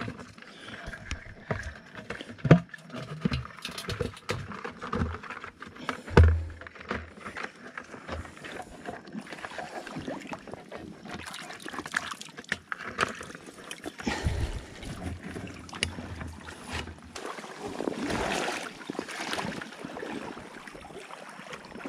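Water sloshing and splashing around rubber waders as a person wades through shallow tidal water, with scattered knocks and thumps, the loudest about two and a half and six seconds in.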